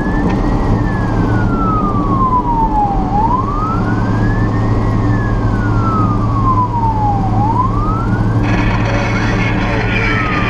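Fire truck siren in a slow wail, one tone rising quickly and falling more slowly about every four seconds, over the steady drone of the truck's engine.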